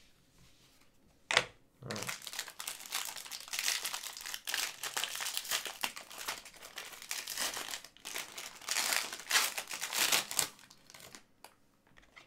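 A single sharp click about a second in, then the plastic wrapper of a trading-card pack crinkling as it is handled and torn open for several seconds, dying away near the end.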